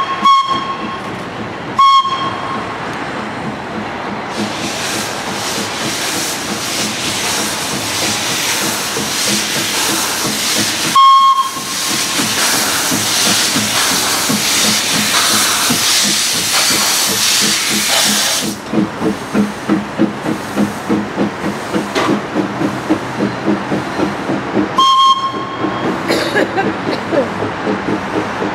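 1891 Sydney steam tram engine sounding short whistle toots three times, with a long loud hiss of steam escaping by the cylinders for over ten seconds in the middle. Near the end the hiss gives way to a steady exhaust chuff of about two beats a second as it works along the track.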